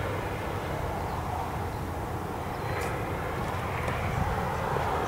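Steady low outdoor rumble, with a faint click about three seconds in as the door's key lock is turned and unlatched.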